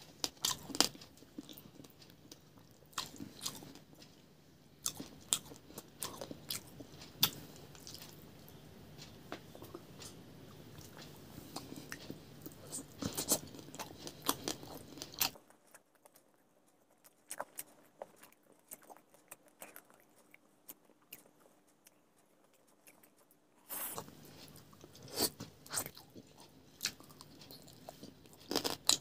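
Close-miked chewing and crunching of crisp-coated fried fish, with sharp bites and wet mouth clicks. About halfway through the background drops away for several seconds, leaving only faint mouth clicks.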